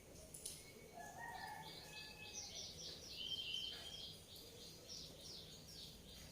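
Small birds chirping faintly: a few short whistled notes, then from about two seconds in a rapid run of short, falling high chirps, several a second.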